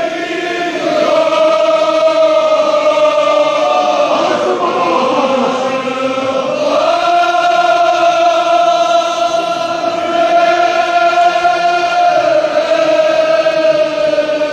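A large crowd of men chanting a Kashmiri marsiya (mourning elegy) in unison. They hold long drawn-out notes that waver and dip in pitch about midway, then settle back to a steady held tone.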